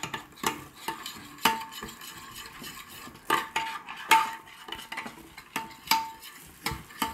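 A spoon stirring a thick spice marinade in a glass dish, with irregular clinks of the spoon against the glass, each leaving a short ring.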